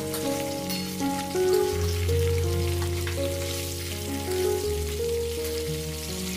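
Mackerel pieces sizzling and crackling in hot oil in a steel kadhai as they are spooned out, under background music with held notes and a steady bass.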